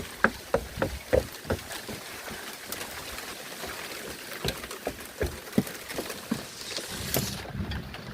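Heavy thunderstorm rain with a steady hiss and irregular sharp taps. The taps come several a second at first, then sparser, as drops or light hail strike nearby.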